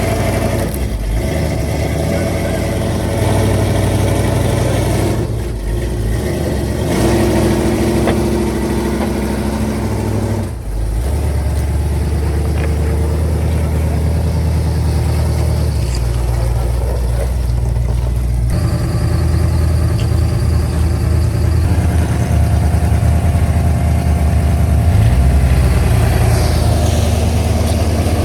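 Vehicle engine running, idling and revving in turn, with sudden shifts in the sound about 5 s, 10 s and 18 s in, like cuts between separate takes.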